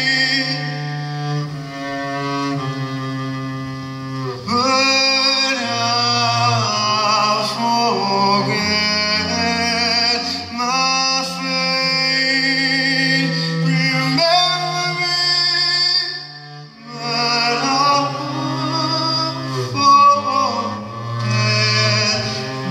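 Live music: a double bass played with a bow in long sustained low notes, with a man singing over it in phrases with vibrato. The sound drops briefly between phrases about two-thirds of the way through.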